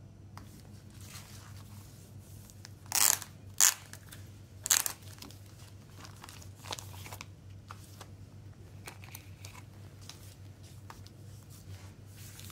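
Plastic shrink-wrap on a CD case crinkling as the case is handled and turned over in the hands, with three loud, sharp crackles about three to five seconds in and softer rustles around them.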